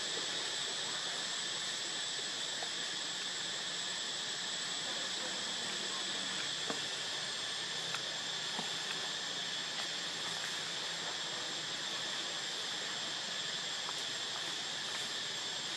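Steady, high-pitched drone of an insect chorus, with a few faint clicks scattered through it.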